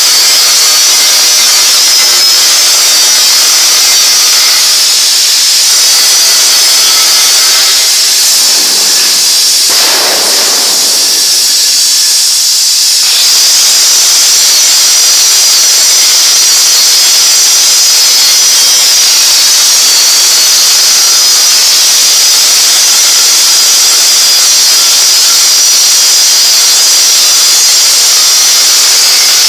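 Gas cutting torch hissing steadily as it cuts a thick-walled steel pipe, with a brief change in the sound about a third of the way in.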